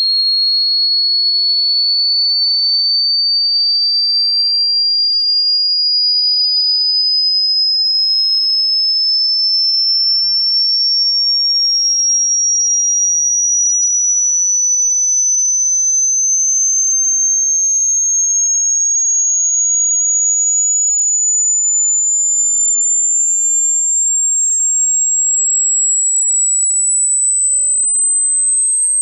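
Electronic sine-wave tone: a single high-pitched pure tone gliding slowly and evenly upward, about an octave over the half-minute, at a steady loudness.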